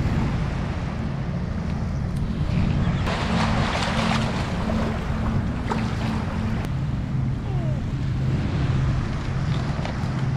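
Shallow surf washing over the beach, with wind rumbling on the microphone. A louder rush of water comes about three seconds in, and a few light clicks are heard.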